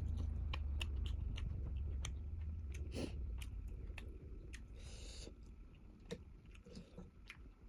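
Close-miked chewing of spicy instant noodles, full of wet mouth clicks, with a short breathy hiss about five seconds in. A low hum fades out over the first few seconds.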